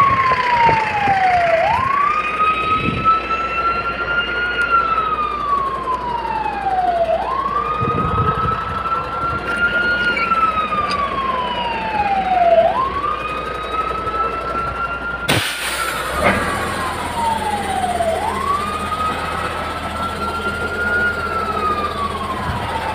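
Fire engine siren sounding a slow wail, repeating about every five and a half seconds: each cycle jumps up quickly, then slides slowly back down. A single sharp knock cuts in about fifteen seconds in.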